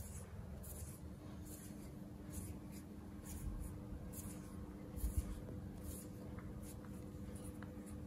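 Hands rubbing and stroking a baby monkey's fur in a massage: soft, scratchy brushing strokes at about two a second, over a faint steady hum.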